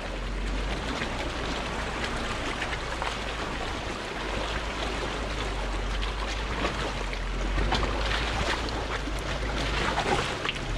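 Jeep Wrangler JK crawling up a rocky creek bed: running water splashing around the tyres, with stones clicking and knocking under them over a low steady rumble.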